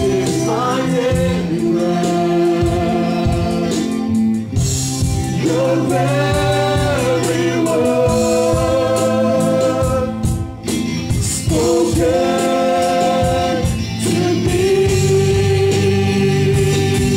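Live gospel worship music: several voices sing held, slow phrases together over a band of electric guitar, bass guitar and keyboard, with brief pauses between phrases.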